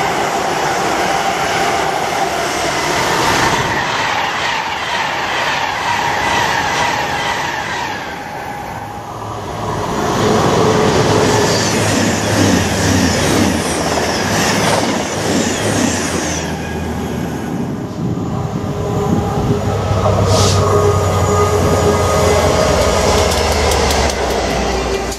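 Trains passing a station platform one after another: first a London Midland electric multiple unit, then a Virgin Trains passenger unit with wheels clattering over the rail joints. From about two-thirds of the way in, a class 67 diesel locomotive running light passes with a steady low engine drone.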